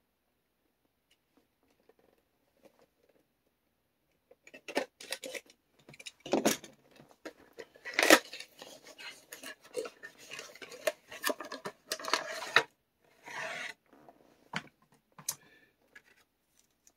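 Packaging of a HeroClix booster being opened and handled: irregular crinkling and rustling with sharp clicks, starting about four seconds in and dying away shortly before the end.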